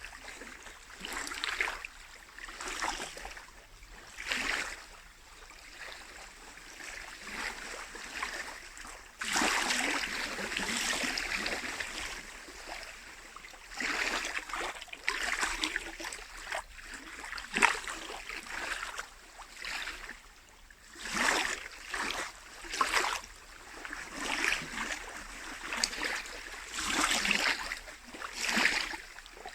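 Small lake waves lapping and splashing against the shore in irregular washes, with a longer surge about nine seconds in.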